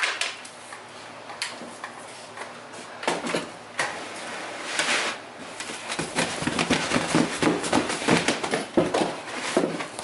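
A square of carpet is dragged and lifted off a wooden workbench, rustling and scraping, then shaken out with a quick run of flapping thumps from about six seconds in, knocking loose baking soda that stayed ground into the pile after vacuuming.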